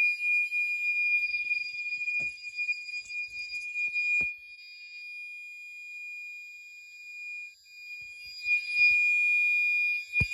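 Gentex Commander 4 fire alarm horn sounding a steady continuous 2400 Hz tone on high volume. The tone grows quieter through the middle and comes back up near the end. There is a short knock about four seconds in and a thump just before the end.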